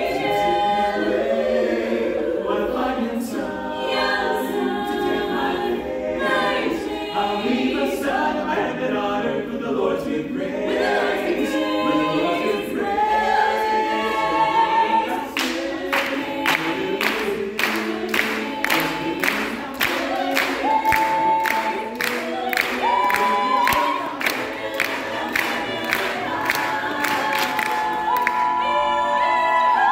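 Mixed a cappella vocal group of men and women singing an upbeat song in close harmony, with no instruments. From about halfway through, hand claps keep a steady beat of about two a second.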